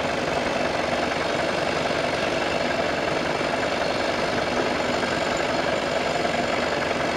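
Chainsaw's small two-stroke engine running steadily at an even speed.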